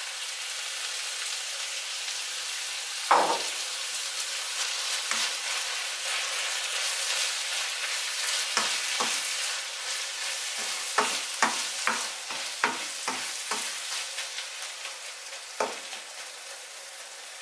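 Minced beef, peppers and tomatoes sizzling in a hot frying pan as beaten eggs go in, with one knock about three seconds in. In the second half, a plastic spatula stirring the mixture knocks and scrapes against the pan many times in quick succession.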